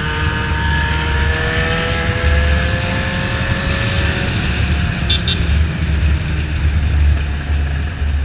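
Motorcycle engine pulling in gear, its pitch rising slowly over the first four seconds, over a steady low rumble of wind noise on the microphone.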